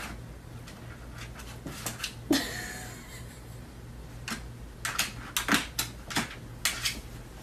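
Small dog clambering into a plastic laundry basket: irregular knocks and rattles of the plastic basket, with a short squeak a couple of seconds in and a denser run of knocks later.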